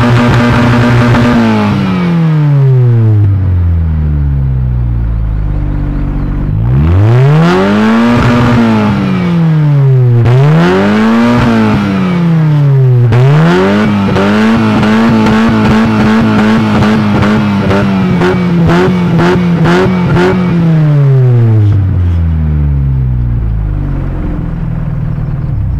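Audi A4 engine through a sport exhaust, revved hard while standing: it starts held high at the rev limiter and drops to idle, then three quick climbs and falls in pitch. It is then held against the limiter for about six seconds with a stuttering edge, and finally falls back to a low idle.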